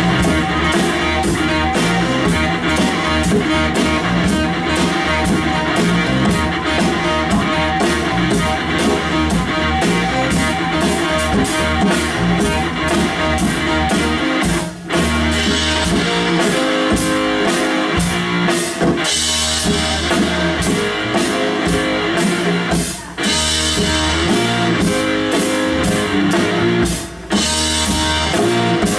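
Live rock band playing with electric guitars and a djembe over a steady drum beat. The band stops for a beat once about halfway and twice more near the end.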